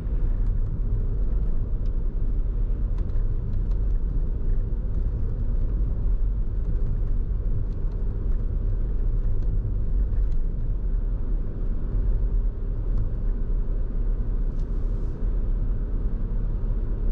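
A car's road and engine noise heard from inside the cabin while driving: a steady low rumble.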